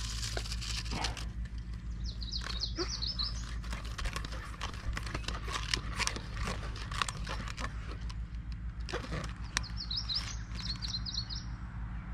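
A songbird sings a short, rapid, high trill twice, about eight seconds apart. Underneath are scattered light clicks and crinkles from handling a plastic-bottle handline, over a steady low hum.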